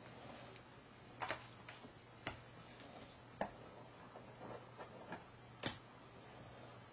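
Kittens' paws and claws tapping and scratching on a cardboard box and a magazine as they play-fight: a handful of sharp, irregularly spaced clicks with softer scuffles between, over a faint low hum.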